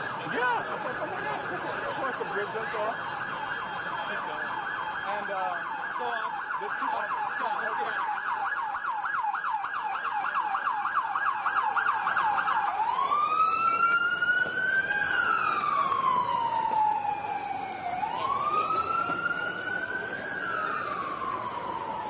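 Emergency vehicle siren with a fast yelp, about four warbles a second. A little over halfway through it switches to a slow wail that rises and falls twice.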